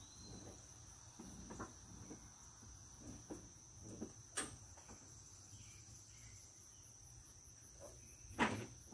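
Insects singing in a steady, high, even tone, with scattered light knocks and a sharper knock near the end.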